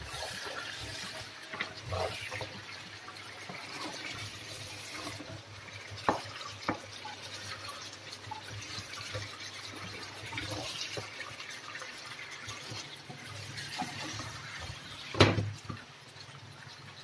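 Chicken pieces sizzling and bubbling in their own released water in a frying pan, the water being cooked off uncovered. A wooden spatula stirs them, with a few knocks on the pan; the loudest comes about 15 seconds in.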